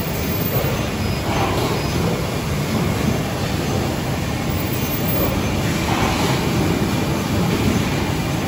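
Automatic rigid box making machine running in a factory: a steady mechanical rumble and hiss, with a couple of brief swells of higher hiss about a second in and near six seconds in.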